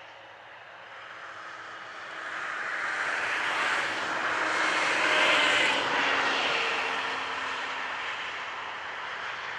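A vehicle passing by: a steady noise that swells to a peak about five seconds in and then fades.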